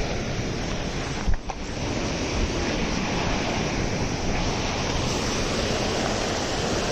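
Steady rushing of falling water from a mountain stream or waterfall close by, with a brief thump about a second in.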